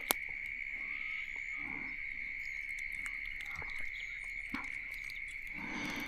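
A steady, high-pitched evening chorus of calling frogs and insects, with a few faint clicks.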